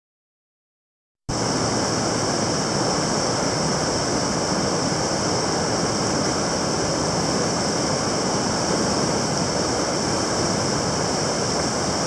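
Silence, then about a second in the steady rush of the Merced River's fast whitewater starts suddenly.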